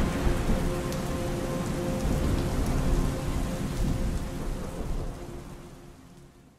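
Rain and thunderstorm soundscape from the dance's soundtrack: a steady rush of heavy rain over a low rolling rumble, with a faint held tone underneath, fading out over the last second or two.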